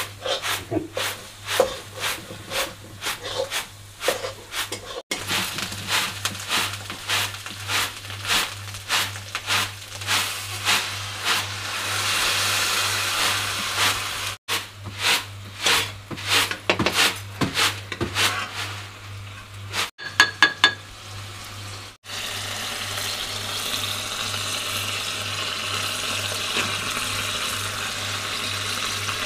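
Cooking in an aluminium kadai over a wood fire: many irregular clicks and scrapes of utensils against the pan, a quick run of four ringing metal taps about two-thirds through, then a steady sizzle of frying. A constant low hum runs underneath.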